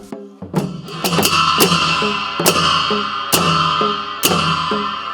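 Music with a steady drumbeat and a plucked string instrument, starting about half a second in.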